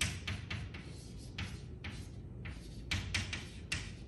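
Chalk writing on a blackboard: a quick, irregular run of short scratching strokes and taps as a word is written.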